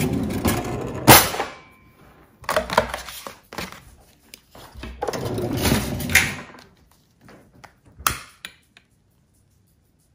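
A kitchen drawer being opened and rummaged through, with things knocking and clattering inside it in several bursts, then a single sharp click about eight seconds in.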